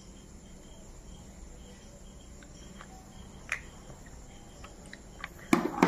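Crickets chirping faintly and steadily over a low room hum, with a soft click about three and a half seconds in.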